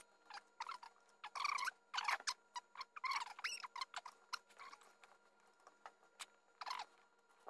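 Test leads and alligator clips being handled on the binding posts of a bench power supply: a string of small clicks and scrapes, with a few brief squeaks, the loudest about two and three seconds in.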